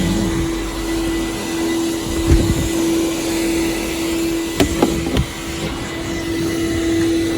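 Token-operated forecourt car vacuum running steadily with an even motor hum and a rush of suction air, which the user takes for a twin-motor Numatic unit. A few sharp clicks and knocks sound over it around the middle.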